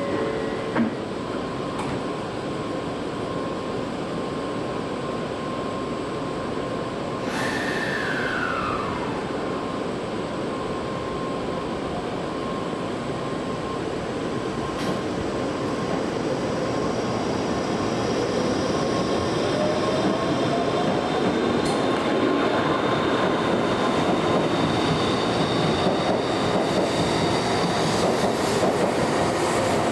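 Shinkansen bullet train running at the station: a steady rush of wheel and rail noise. About eight seconds in there is a tone that falls in pitch. In the second half a rising whine comes in and the sound grows louder toward the end.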